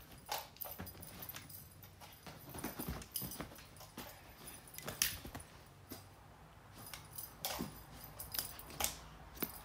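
A tabby cat playing with a string toy, its paws landing and skittering on a wooden floor and bedding. These come as irregular knocks and scuffs, the loudest about five seconds in.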